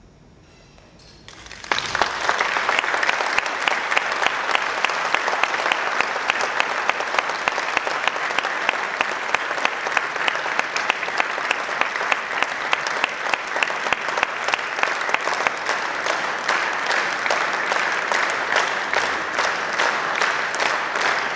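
Concert hall audience applauding: after a second and a half of near quiet, dense clapping breaks out suddenly and keeps up steadily.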